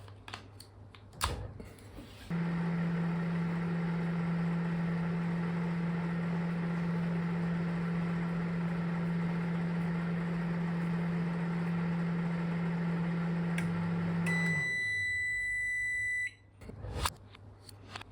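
Sharp R270 microwave oven switched on with a click and running for about twelve seconds with a steady low hum and fan noise, then stopping and giving one long high beep. Another click near the end.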